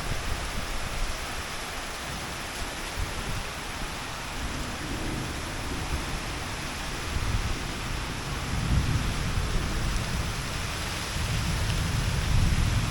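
Heavy rain pouring steadily, with low gusty rumbles of strong wind that swell in the latter part.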